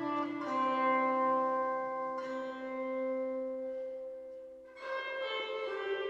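Slow instrumental background music with long held notes, changing to new notes about every two and a half seconds.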